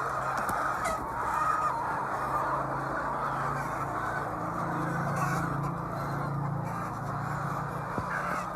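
A flock of laying hens clucking and calling all at once, a continuous overlapping chatter, over a steady low machine hum.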